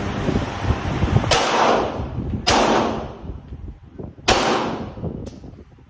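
Three pistol shots from a Glock 17 Gen 5 9mm, spaced about a second and a half apart, each followed by a short echoing decay; the third shot is the loudest.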